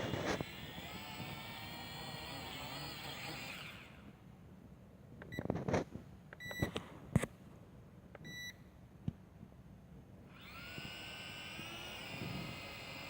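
Small quadcopter drone's propeller motors whirring with a wavering pitch, cutting out about four seconds in. A few clicks and short electronic beeps follow, then the motors spin up again with a rising whine about ten seconds in.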